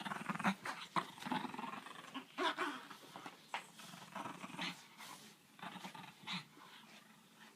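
A dog making short, uneven vocal sounds, one after another, a couple each second.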